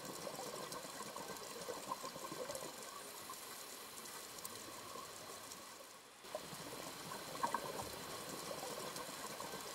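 Faint water ambience: a steady watery hiss with small trickling, bubbly sounds, dipping briefly about six seconds in.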